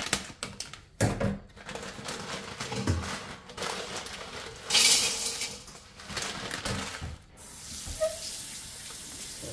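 Scissors snipping and a plastic bag of dried rice noodles crinkling, the stiff noodle bundle knocking against a stainless steel bowl, with a loud rustle about five seconds in. From about seven seconds, tap water runs into the bowl in a steady hiss.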